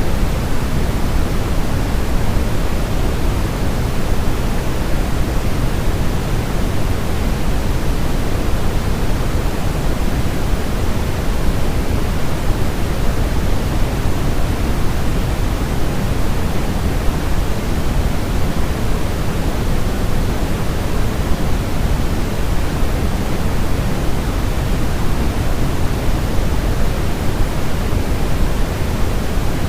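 Steady generated white noise for baby sleep, a continuous even rush with most of its weight in the low end and no changes.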